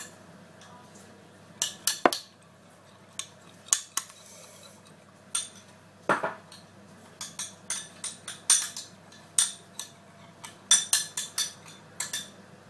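Metal teaspoon stirring a shampoo and borax mixture in a small glass bowl: irregular sharp clinks of the spoon against the glass, often several in quick succession.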